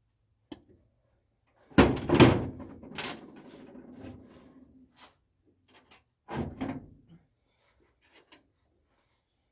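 Knocks and clunks of hard objects being handled: a light tap, then a loud cluster of knocks about two seconds in that rings on briefly, another clunk a little before the seven-second mark, and a few faint ticks near the end.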